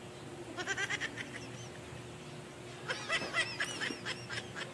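A bird calling in two quick runs of short, high, repeated chirps, about half a second in and again around three seconds in, over a faint steady hum.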